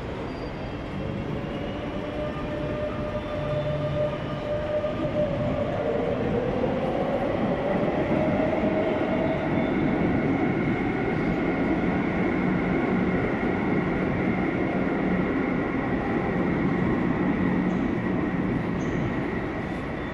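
Metro train running through an underground station: a rumble that builds over the first several seconds, with a motor whine rising in pitch partway in, then steady running.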